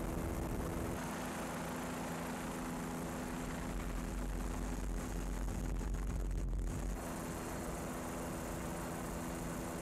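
Steady drone of an aircraft engine, with a steady multi-tone hum over a wash of noise. A deeper low rumble swells from about four seconds in and drops away suddenly about three seconds later.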